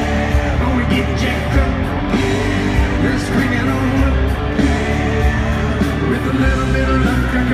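Live country-rock song played by a full band in an arena, with a male lead voice singing over a strong bass.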